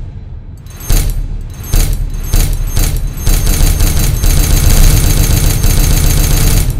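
A run of booming sound-effect hits, about one every half second at first, that pile up from about halfway into a dense, loud wall of noise with a deep low end and a metallic ring on top.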